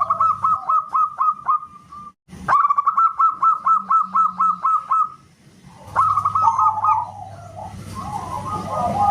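Zebra dove (perkutut) cooing: quick runs of short staccato notes. The song stops abruptly for a moment about two seconds in, then comes back with a longer run, and turns into a looser rolling warble from about six seconds.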